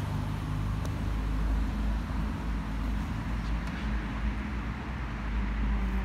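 Road traffic noise: a steady low rumble and hiss of passing cars.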